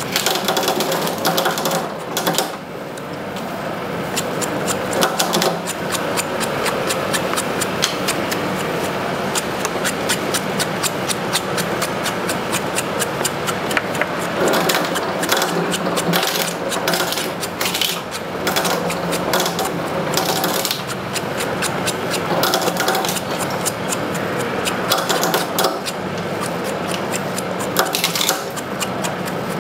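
Rapid, continuous mechanical clattering, like a small machine running, with many quick clicks close together throughout.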